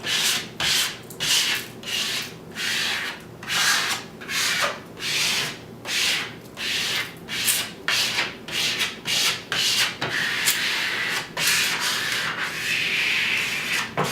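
A plastic card scraping over the transfer tape of a vinyl wall decal on the wall, in short repeated strokes about one or two a second and one longer stroke near the end. This is the decal being squeegeed down from the center out to press out air bubbles.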